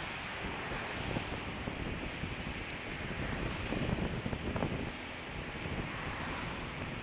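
Wind buffeting the microphone of an action camera on a moving scooter in the rain: a steady rushing noise with an irregular low rumble.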